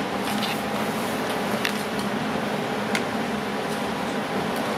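Steady hum of a mechanical fan running, with a couple of faint ticks and scrapes from a spatula working thick epoxy resin paste.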